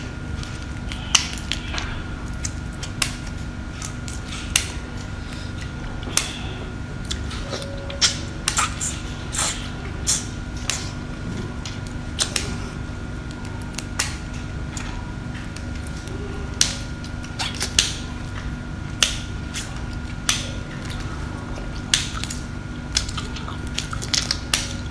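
Close-up eating sounds: scattered sharp clicks and crackles of raw shrimp shells being pulled apart and bitten, coming irregularly, over a steady background hum.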